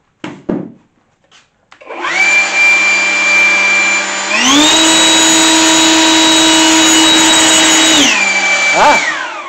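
Einhell GP-LB 18/200 Li E cordless 18 V brushless leaf blower starting up and running with a loud steady whine. About two seconds later it steps up to a higher speed and pitch and holds there. It then drops back and winds down near the end.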